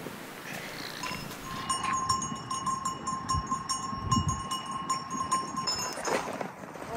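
Metal bell on grazing livestock ringing over and over for about four seconds, starting a couple of seconds in.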